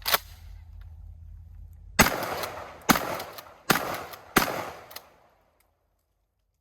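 Remington 870 Express Magnum 20-gauge pump shotgun fired four times in quick succession, the shots under a second apart, each followed by a decaying echo. A sharp click comes just at the start.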